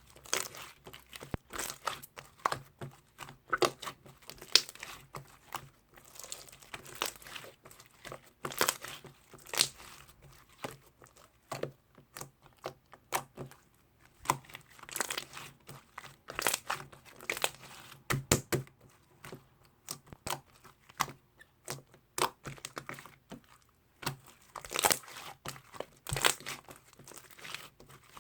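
Crinkling and rustling in irregular short bursts, as of something being handled.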